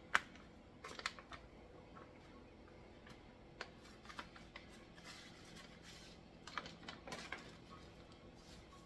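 Kraft paper pouch crinkling and rustling in short, scattered bursts as it is torn open and a cloth bag is pulled out of it.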